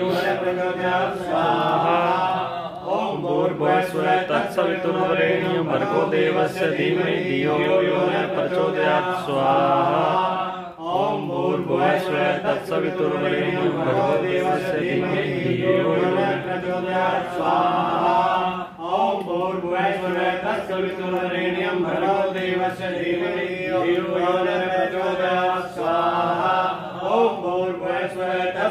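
Sanskrit mantras chanted in a continuous, steady-pitched recitation, with a couple of brief pauses for breath.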